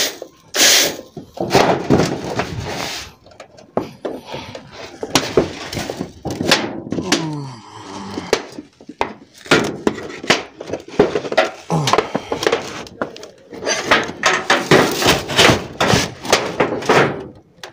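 Irregular knocking, clattering and scraping as old clay roof tiles and a sheet of metal roof flashing are handled and shifted.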